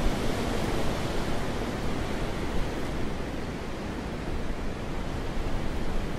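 Steady wind blowing, an even rushing noise that rises and falls a little in strength, easing slightly in the middle.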